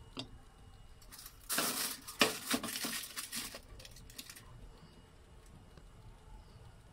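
Glass baking dish being slid into the oven over a foil-lined rack: a short stretch of foil rustling and scraping with a few clinks of glass on metal, then it goes quiet.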